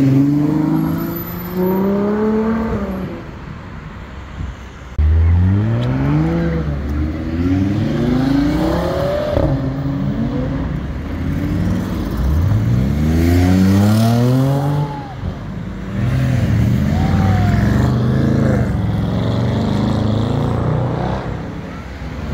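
Car engines accelerating hard past one after another. Each revs up in rising sweeps that break off and climb again as it shifts up through the gears, with a quieter spell before the run that starts about five seconds in.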